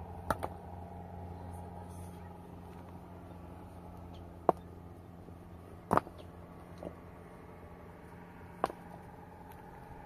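About six short, sharp knocks at irregular intervals, a quick pair just after the start and the loudest just past the middle, over a steady low hum.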